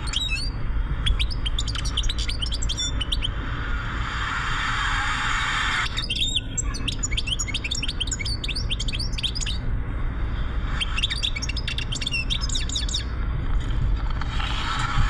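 European goldfinch song: fast, twittering phrases, three bursts with short gaps, over the steady low rumble of a moving car.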